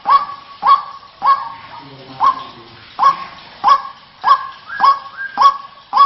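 White-breasted waterhen (ruak-ruak) giving its repeated harsh 'wak' call, about ten loud notes in quick succession with a short pause around two seconds in, played as a bird-trapping lure call.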